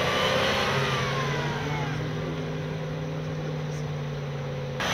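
Land Rover Defender 110's 3.5-litre V8 engine pulling under throttle through snow, with a steady engine note.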